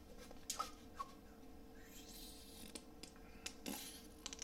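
Faint handling of a plastic squeeze bottle of Parkay liquid margarine as it is squeezed out: a few soft clicks and a short hiss about two seconds in.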